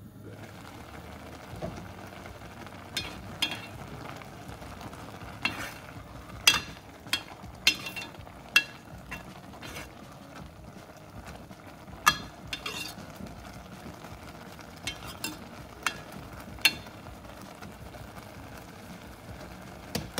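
Metal ladle stirring steamed spinach and broccoli in a stainless steel saucepan, clinking sharply against the pot about a dozen times, over a steady low hiss of the pan cooking on a gas burner.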